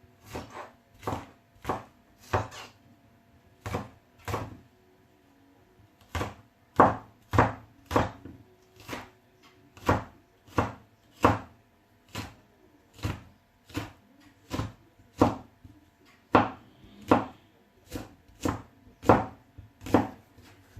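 Knife chopping through fish pieces onto a cutting board, sharp separate strokes at about one and a half a second, with two short pauses in the first six seconds.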